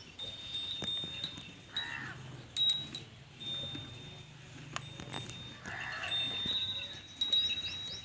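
A small metal bell clinking and ringing on now and then, four times, as cattle move while feeding. Two short animal calls come about two seconds in and again near six seconds.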